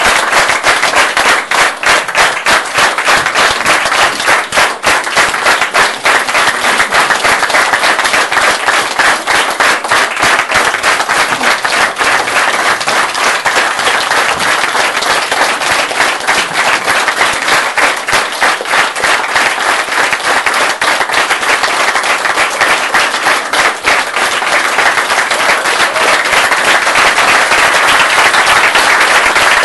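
Audience applauding: many hands clapping without a break, growing a little louder near the end.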